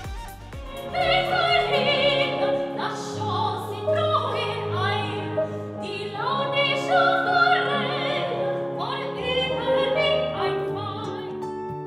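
A woman singing in an operatic style with wide vibrato, accompanied by a Roland digital piano. The voice stops near the end, leaving the piano's held notes.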